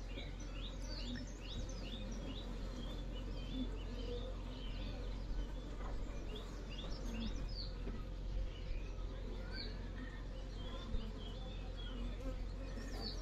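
Buzzing hum of an open hive of Indian honeybees (Apis cerana indica). A bird chirps over it in quick repeated high notes, two to three a second, in the first few seconds, then more sparsely.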